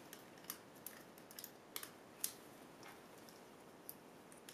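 Faint, scattered plastic clicks as mechanical keyboard switches are handled and pressed one at a time into a macropad's switch plate, with the loudest click about halfway through.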